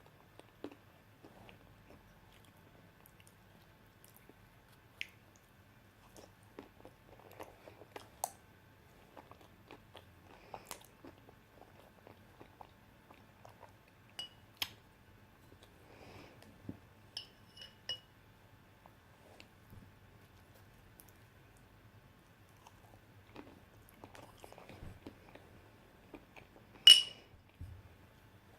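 Close-up chewing and wet mouth sounds of someone eating banana with peanut butter, with scattered soft clicks. A single sharp, ringing clink sounds near the end, like a utensil striking a dish.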